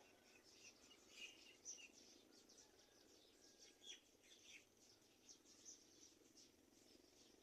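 Faint bird chirps: a scatter of short high calls over a low, steady background hum.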